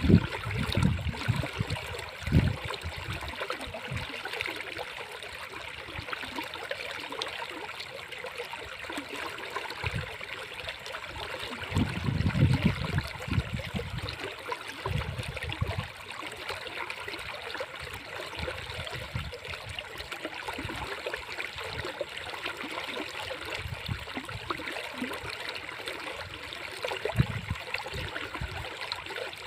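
River water flowing: a steady rushing noise, broken by a few short low rumbles near the start, around the middle and near the end.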